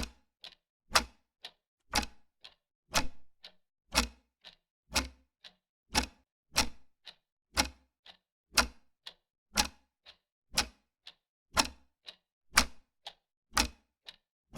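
Clock ticking, steady and even: a louder tick every second with a softer tock halfway between each pair.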